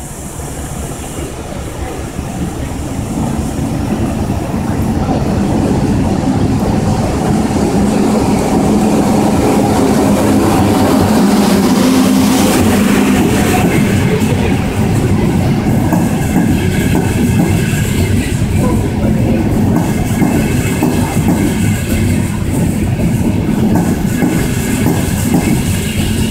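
Frecciarossa high-speed train pulling into a station: its rumble grows over the first few seconds, then the coaches roll past with wheels clacking over the rails. Thin high squeals join in the second half as it brakes to a stop.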